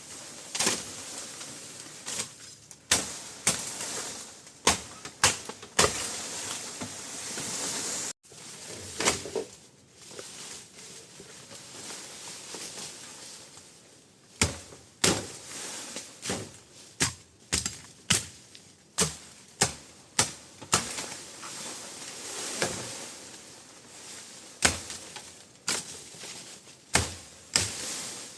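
A series of sharp knocks at an uneven pace, roughly one a second, with the sound cutting out for a moment about eight seconds in.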